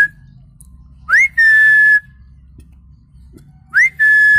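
A man whistling a bird-call imitation by mouth, without any device: each call is a quick rising note followed by a long held note that falls slightly, heard twice about two and a half seconds apart.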